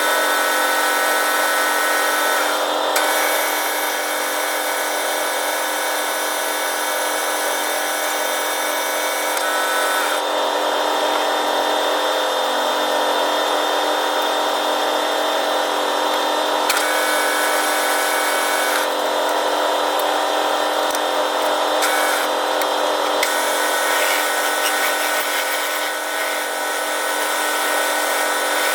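Manual metal lathe running steadily, its motor and gear train giving a whining hum made of several steady tones. Some of the higher tones drop out and come back several times.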